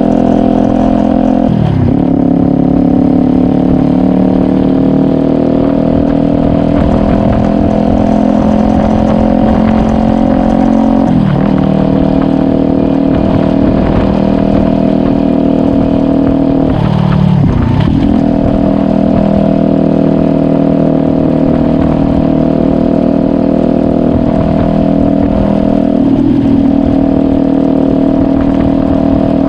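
Kawasaki Ninja 400's parallel-twin engine running under way, its note holding steady and slowly rising, with four brief dips in pitch that quickly recover.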